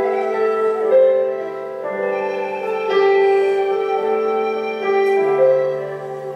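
Live instrumental ensemble music: a melody of held notes that move to a new pitch about once a second over lower sustained notes.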